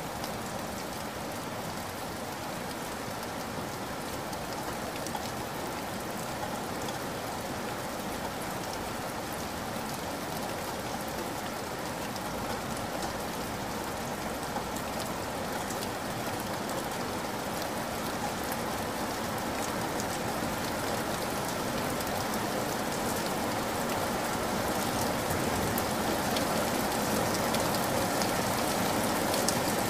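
Shallow stream flowing over a gravel bed: a steady rush of running water with a fine patter of trickles and drips, growing a little louder in the second half.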